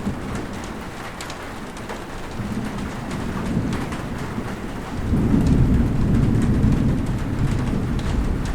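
Steady rain with scattered close drops ticking. A low rumble of thunder swells about five seconds in and keeps rolling.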